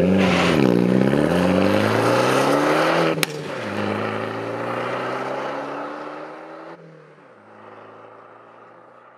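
Alfa Romeo MiTo's engine revving and accelerating through the gears. The pitch dips and climbs in the first second, then rises steadily. A sharp click about three seconds in comes with a drop to a lower pitch, and the engine pulls up again. It drops once more near seven seconds and gets quieter toward the end.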